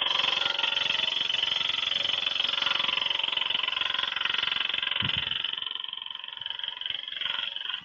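Skew chisel cutting a spinning spindle of wet wood on a wood lathe: a steady hissing cut over the lathe's running hum, which cuts off suddenly near the end.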